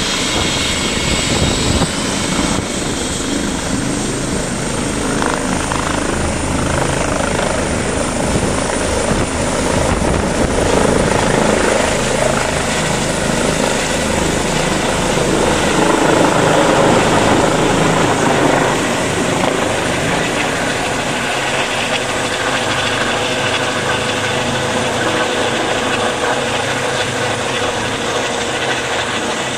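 Twin-engine medical helicopter taking off from its pad and climbing away overhead, its turbines and rotor running steadily with a high whine that rises a little in the first seconds. It is loudest a little past halfway as it passes overhead.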